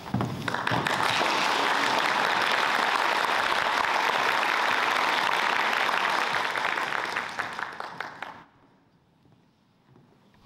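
Audience applauding: steady clapping that dies away after about eight seconds.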